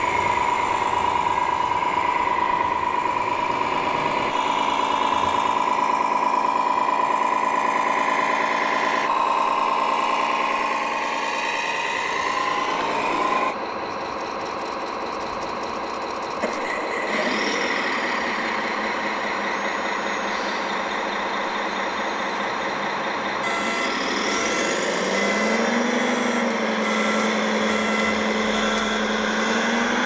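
Electronic sound modules of radio-controlled model trucks and a model crawler dozer playing simulated diesel engine sounds, with a reversing beeper. The engine sound changes abruptly several times, and its pitch rises about three-quarters of the way through as the dozer drives.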